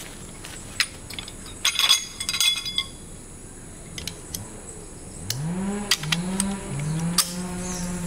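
Scattered light knocks and a quick run of clinks about two seconds in, like small camp gear being handled, over a steady high insect drone. Over the last three seconds a low, buzzy pitched sound rises and then holds in a few short stretches.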